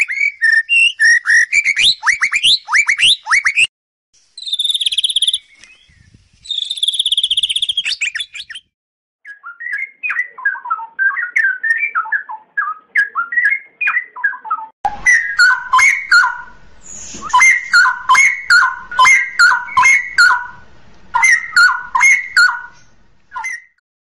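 White-rumped shama singing fast trills and high whistles. After a brief pause about nine seconds in, a straw-headed bulbul sings repeated bubbling phrases of lower, liquid notes.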